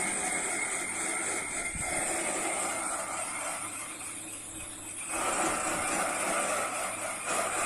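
Metal lathe running and cutting, a steady noise with a high hiss and a faint hum underneath; it eases off for about a second midway, then picks up again.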